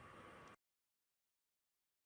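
Near silence: faint room hiss with a thin steady whine, cutting off to dead silence about half a second in.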